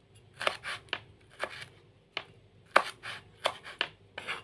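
Kitchen knife chopping chilies on a cutting board: about a dozen sharp, irregularly spaced cuts.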